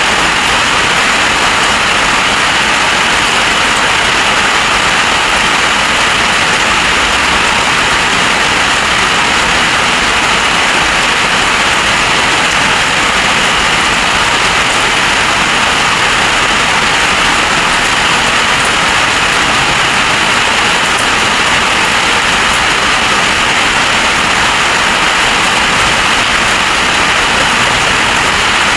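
Heavy storm rain pouring down, a loud, steady rush with no let-up.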